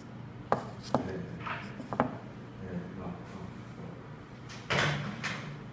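Handling noise: three sharp clicks or knocks in the first two seconds, then a short rustling burst near the end, over a low room hum.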